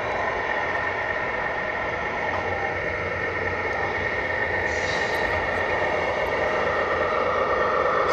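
1/14 scale radio-controlled tractor trucks running, a steady whine over a hiss that grows a little louder near the end.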